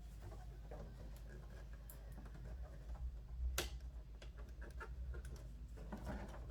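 Light scattered clicks and taps of blind hardware being handled and fitted, with one sharper click about three and a half seconds in and a few quick clicks near the end.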